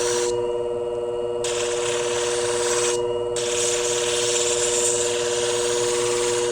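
Motorised shear-sharpening machine running with a steady hum while a shear blade is ground against its spinning abrasive, giving a steady hiss. The hiss stops twice, for about a second near the start and briefly about three seconds in, as the blade is lifted off.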